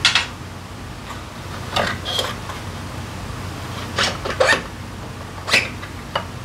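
Scattered metal clanks and clinks of hand tools and scooter drivetrain parts being handled: a tool set down on the workbench, then the drive belt and drive face being pulled off the Honda Forza 350's CVT. A low steady hum runs underneath.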